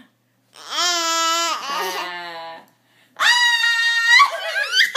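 Baby babbling in two long, drawn-out vowel calls about half a second apart. The first is held steady and sags near its end; the second is higher-pitched and squealing.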